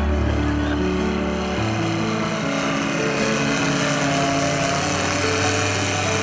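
Background music with held chords that change every second or so, over the steady engine drone of a light propeller plane flying overhead.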